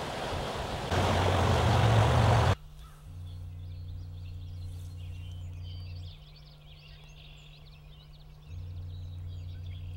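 Stream water rushing and splashing around a wader's legs, a steady hiss that gets louder about a second in and cuts off sharply. Then comes a much quieter stretch: a low steady hum that fades out for a couple of seconds and returns, with faint bird chirps over it.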